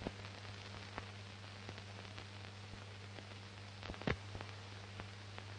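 Steady hiss and mains hum of an old film soundtrack, with scattered clicks and crackles; one louder click about four seconds in.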